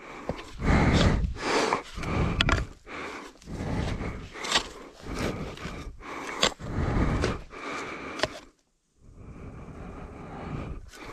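Ice axe and crampons being driven into firm snow on a steep slope, a crunching scrape about once a second, some strokes ending in a sharp metallic click, with a brief pause a little after eight seconds in.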